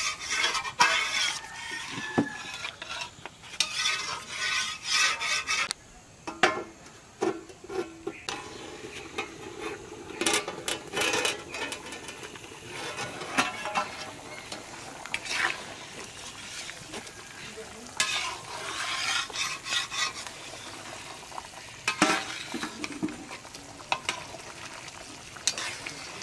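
A metal spoon stirring duck curry in a pot, scraping and clinking against the pot at irregular intervals over a steady frying sizzle.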